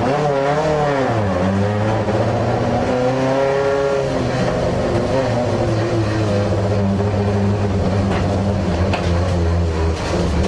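Rally car engine heard from inside the cabin, driven hard: the revs dip about a second in, climb again, then hold fairly steady.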